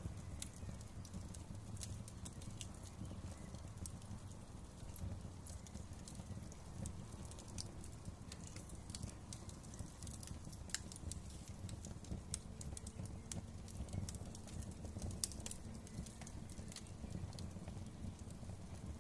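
Wood fire crackling: irregular sharp pops and snaps scattered over a steady low rumble, with a few louder snaps around ten and fifteen seconds in.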